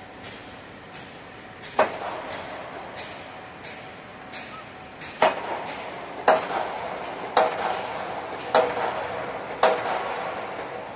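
Hammer blows on steel: six loud strikes, the first about two seconds in and then roughly one a second from about five seconds on, each leaving a short metallic ring, over fainter, quicker ticking.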